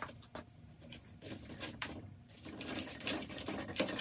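Kitchen knife cutting through raw deer backstrap on a wooden cutting board: a few taps of the blade at first, then from about a second in a busy, irregular run of scraping and tapping as the blade works through the meat and against the board.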